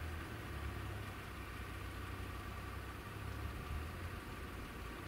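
Low, steady engine idling from a car waiting at a closed railway crossing, with a faint steady high tone above it.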